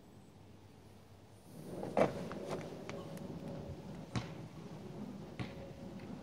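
Handling noises of small parts and a can being moved and set down: a few light knocks and clicks, the loudest about two seconds in.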